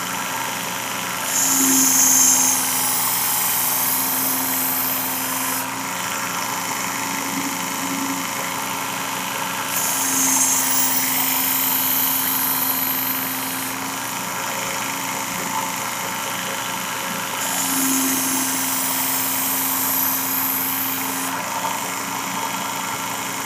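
Work Sharp sharpener with its Blade Grinding Attachment running at high speed with a steady whine, its abrasive belt grinding a machete's edge. A hiss rises over the motor three times, for a few seconds each, as the steel is drawn across the belt.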